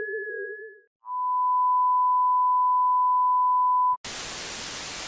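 Electronic outro sound effects: a warbling sci-fi synth tone fades out in the first second, then a steady, high test-tone beep sounds for about three seconds and cuts straight to a loud hiss of TV static.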